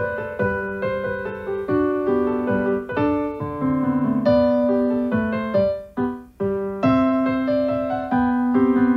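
Background music on piano, a light melody of single struck notes over a simple accompaniment, with a short break about six seconds in.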